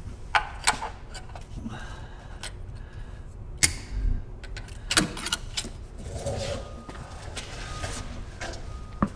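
A few scattered sharp clicks and metal clinks of parts and tools being handled under a light-aircraft engine, with a faint steady hum in the last seconds.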